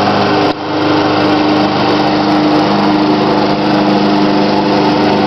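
Walk-behind gas lawn mower's small engine running steadily while cutting grass, dipping briefly in loudness about half a second in.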